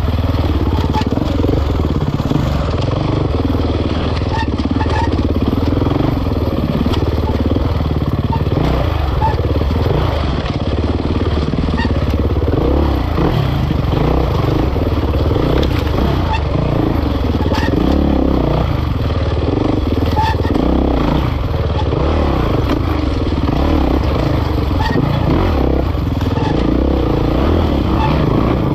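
Kawasaki KX450X's 450 cc single-cylinder four-stroke engine, heard from on board as the bike is raced hard over rough trail, its note rising and falling continually with the throttle.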